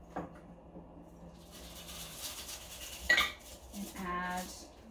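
Cocktail poured from a glass mason jar through a small hand strainer into a drinking glass: a light trickle of liquid, then about three seconds in a sharp clink against the glass, the loudest sound. A short humming tone follows near the end.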